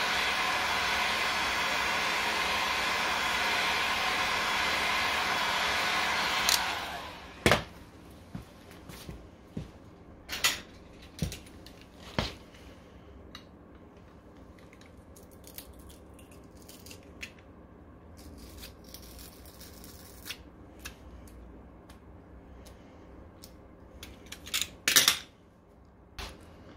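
Electric scooter rear hub motor spinning with a steady whir, winding down about six or seven seconds in. Scattered clicks and knocks of handling and tools follow, the loudest a pair near the end.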